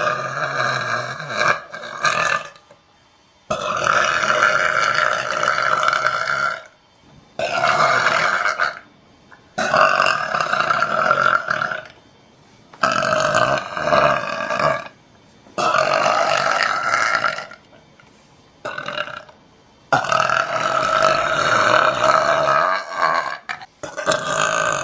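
A woman burping: a series of about eight long belches, one after another, each lasting one to three seconds with short pauses between.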